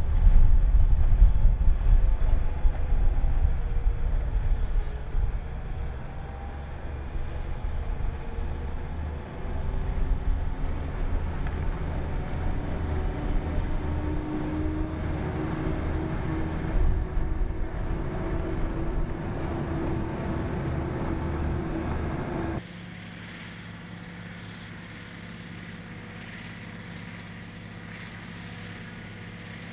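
Cog railway railcar running on the rack track, a loud low rumble that fades as it draws away, with a faint, slightly rising whine in its last stretch. About two-thirds through the sound changes abruptly to a rotary snowplow running steadily.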